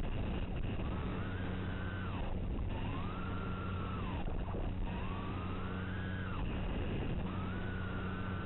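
Small FPV plane's electric motor and propeller whining in throttle bursts: the pitch climbs, holds for a second or two, then drops off, about four times, the last one still going at the end. Under it runs a steady hiss and a low hum.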